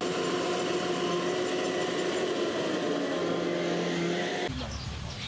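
A motor running steadily, a mechanical hum with several held tones that starts suddenly and cuts off about four and a half seconds in.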